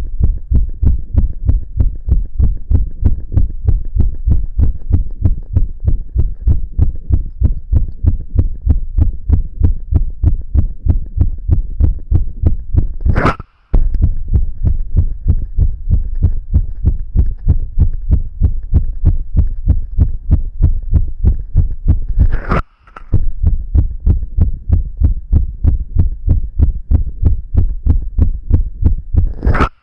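A young man's heartbeat, fast and regular, picked up close on the chest. The run of beats breaks twice with a brief gap and a sharp click.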